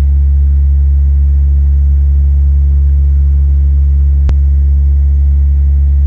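Loud, steady low drone of a passenger aircraft cabin in flight: engine and airflow noise, with one sharp click about four seconds in.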